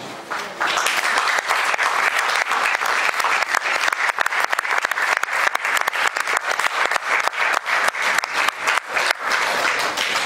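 Audience applauding: dense clapping from a seated crowd that begins about half a second in and goes on until the end.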